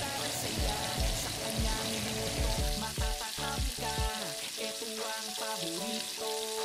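Flour-coated chicken leg quarters deep-frying in hot oil, a steady sizzle and crackle, under background music with a bass beat that drops out about two-thirds of the way through.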